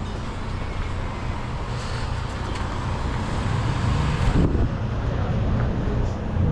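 Honda XR 250 Tornado's single-cylinder four-stroke engine running as the motorcycle gets under way, slowly growing louder, with road and traffic noise around it.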